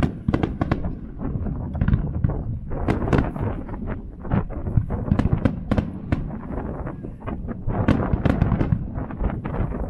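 Aerial firework shells bursting in quick succession: a continuous run of sharp booms and bangs, several a second at times, over a low rumble.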